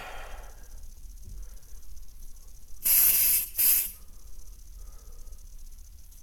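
Aerosol can of Smoke Sabre smoke-detector test spray, sprayed in two short hissing bursts about three seconds in, the second briefer than the first.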